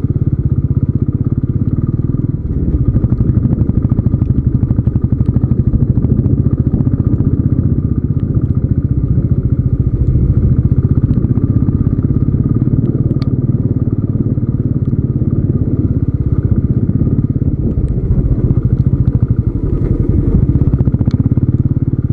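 Royal Enfield Classic 350's single-cylinder engine running steadily under way, its exhaust beating in rapid, even pulses, with a few light clicks in the second half.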